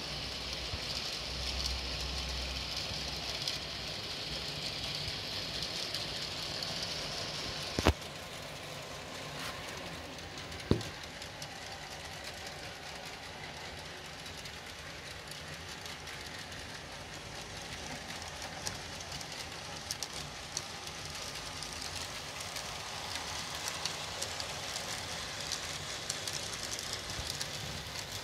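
N-scale model trains, a Minitrix ICM Koploper pair running in double traction, rolling along the track with a steady motor whine and wheel rumble and light ticking. The whine is strongest for the first several seconds, then settles lower. Two sharp clicks come about 8 and 11 seconds in.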